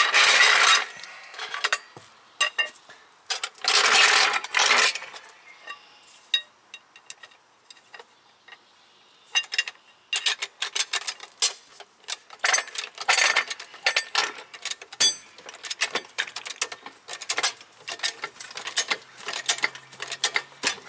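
Steel floor jack being handled and set under the car: two scraping drags about a second long near the start, then a long run of irregular metallic clicks and rattles.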